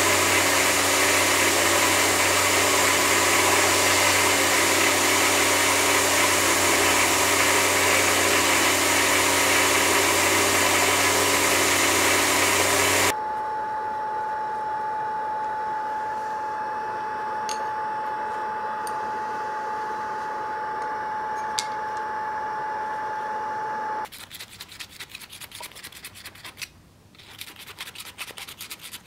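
A belt grinder running as a small metal part is held against the belt, a loud steady hiss with a low hum. About 13 seconds in it gives way to a quieter steady machine sound with one clear tone and a few faint ticks, and in the last five seconds a file rasps back and forth in quick strokes through the square hole of a small handle spacer.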